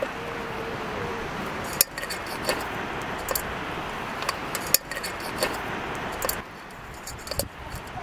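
Cookware and utensils clinking and tapping a dozen or so times over a steady hiss that drops away near the end.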